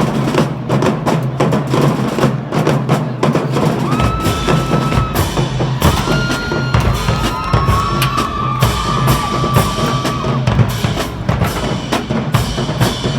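High school marching band drumline playing a fast marching cadence of snare and bass drums. About four seconds in, deeper drums join, and long, high whistle-like tones sound over the drums for several seconds.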